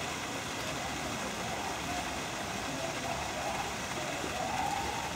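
Steady rushing background noise with faint distant human voices.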